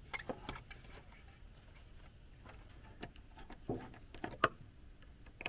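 Faint clicks and knocks of hands working on a tractor's air cleaner: the intake hose is fitted and its metal hose clamp tightened with a nut driver. There are a few small ticks near the start and a cluster of sharper clicks from about three to four and a half seconds in.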